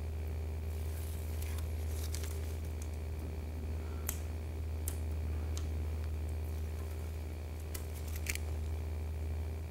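The protective backing being peeled off tape along a car door's edge and handled, giving faint crinkling and a few sharp ticks over a steady low hum.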